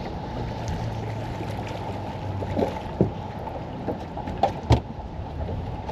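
Fishing boat on the water: a steady low rumble with a few sharp knocks on the boat, the loudest two close together near the end.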